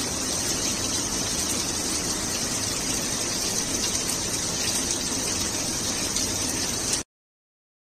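Heavy rain pouring down as a steady hiss of water that cuts off suddenly about seven seconds in.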